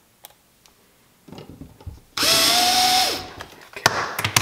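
Power drill with a Phillips bit driving the last screw into a wall bracket at low torque: the motor whirs steadily for about a second, its pitch rising slightly, and a few sharp clicks follow near the end.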